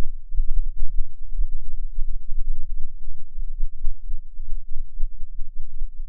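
Wind buffeting the camera microphone: a loud, uneven low rumble, with a few faint clicks about half a second in and near four seconds.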